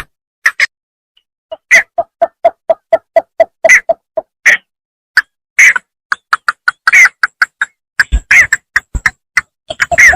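Paddy-field bittern calling: fast runs of short, clipped notes, about five a second, broken by brief pauses.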